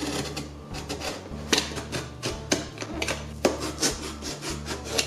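Craft knife blade drawn along a steel ruler, cutting through a cardboard box: a series of scratchy rasping strokes, one or two a second.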